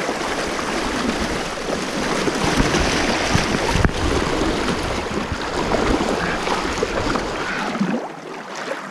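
Water splashing and swirling as a person wades through a river against the current. The water noise eases off about a second before the end.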